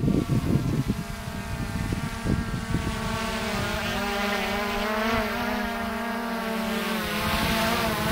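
PowerVision PowerEgg X drone's propellers whining as it flies in close overhead, a multi-tone whine that wavers up and down in pitch as the drone holds and adjusts its position.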